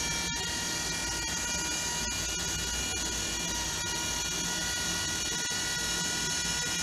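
Electric cup turner motor running steadily as it rotates a tumbler: a constant hum with a high, even whine.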